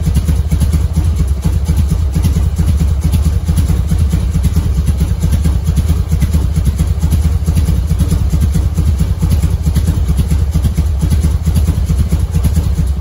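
Carbureted Harley-Davidson V-twin idling steadily at low idle, around 900 rpm, while its idle mixture screw is being adjusted.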